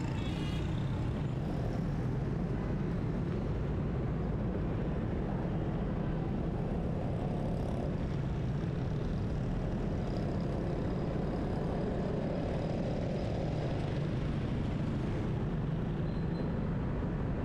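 Steady low rumble of a car driving in city traffic: engine and tyre noise mixed with the surrounding traffic.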